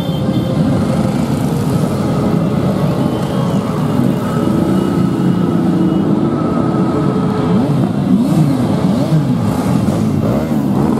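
A stream of motorcycles riding past one after another, their engines running and revving; the engine pitch rises and falls several times in the second half as bikes go by.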